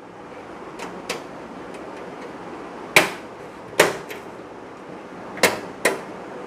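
Rear I/O back panel shield being pressed into the computer case's back opening: a series of sharp clicks and knocks, two small ones, then two loud ones and a closer pair later on.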